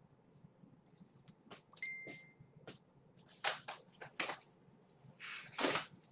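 Scattered clicks, knocks and rustling from off-camera handling, with a short high beep about two seconds in and a longer rustling burst near the end.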